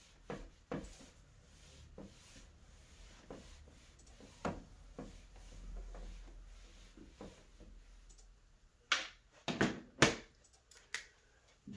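Whiteboard eraser wiping across a whiteboard in soft, repeated strokes. Near the end come a few sharp knocks and clicks, the loudest sounds here.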